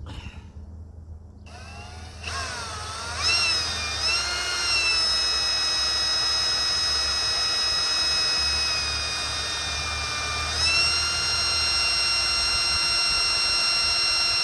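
Cordless drill spinning a drill-powered transfer pump that pumps water, starting up about two seconds in with a rising whine, then running steadily. Its pitch sags a little about nine to ten seconds in and comes back up just before eleven seconds.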